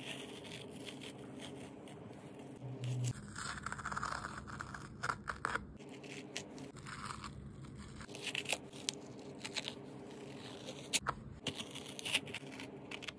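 Masking tape being peeled off the edges of a small stretched canvas: an uneven run of sticky ripping and crackling, with a few sharp snaps as the tape lifts.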